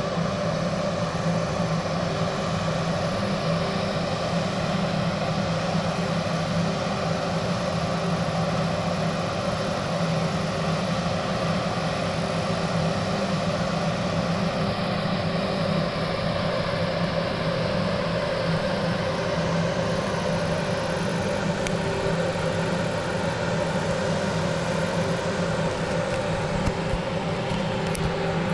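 Steady low mechanical hum with a constant drone, unchanging throughout, with a few brief knocks near the end.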